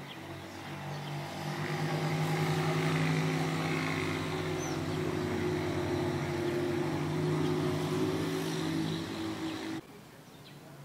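A steady, even engine drone that builds over the first two seconds and cuts off abruptly near the end.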